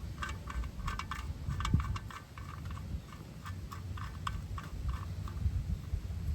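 A run of light, irregular clicks and taps from hand tools being worked, several a second, over a low rumble.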